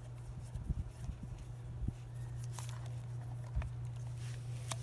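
Scattered light clicks and taps of a hand screwdriver and plastic tail-light housing being worked to undo the light's mounting screws, over a steady low hum.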